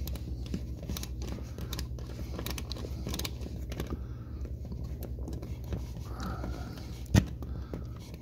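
Hand ratcheting wrench clicking irregularly as it is worked back and forth to drive a screw into the roof's wood, with one sharper click about seven seconds in. A steady low hum runs underneath.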